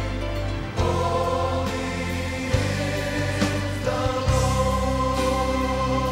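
Choral music: a choir singing long held chords, moving to a new chord about a second in and again about four seconds in.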